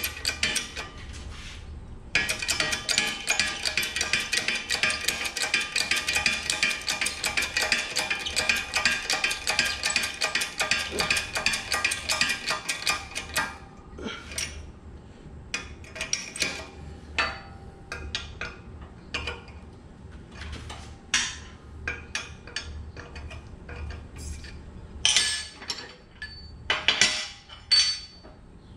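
Background music with a steady beat for the first half, then scattered metal clanks and clicks from steel press parts and tooling being worked and handled on a shop press.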